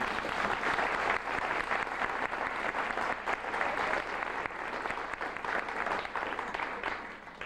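Audience applauding, a sustained round of applause with many hands clapping that dies away near the end.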